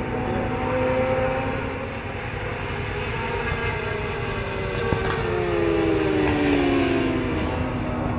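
Racing sportbike engines at high revs as motorcycles go through a corner, with several engines at once from about five seconds in. Their pitch slides down around six to seven seconds in, then climbs again as the throttle opens.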